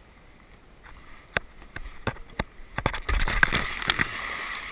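Plastic kayak knocking and scraping several times as it slides off the bank, then a splash and rush of water as it enters the river, water drops pattering back onto the surface.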